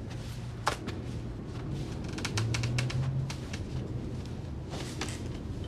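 Quiet scene sound: scattered small clicks and taps, a quick run of them about two seconds in, over a low steady hum.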